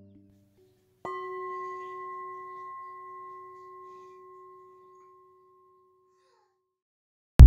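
A single bell tone struck about a second in, ringing with several clear overtones and fading away over some five seconds; it marks the end of the breath hold. Just before the end, loud music cuts in.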